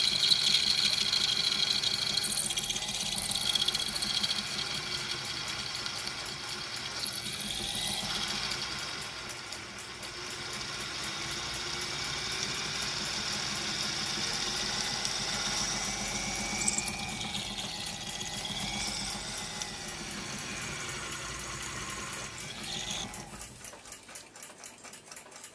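Small lathe running, drilling a hole into the end of a steel clock gong rod with a small twist drill, a steady machine hum with the scrape of the bit cutting. It winds down near the end as the bit is withdrawn.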